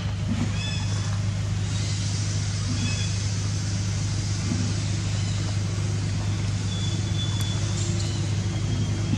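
A steady low hum like a running motor, under a constant hiss, with a few brief high chirps.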